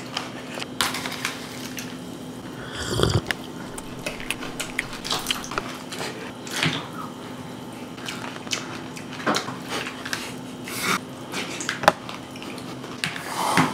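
Messy, wet eating of cereal soaked in Pepsi: slurping and chewing with irregular sharp clicks and drips, over a steady low hum.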